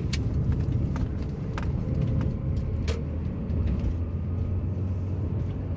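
Lada Granta's 87-horsepower engine and road rumble heard from inside the cabin as the car drives with the windows closed: a steady low drone, with a few faint clicks.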